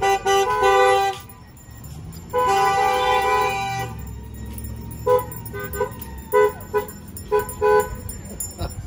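Car horns honking: two long blasts, then a run of short toots about two a second.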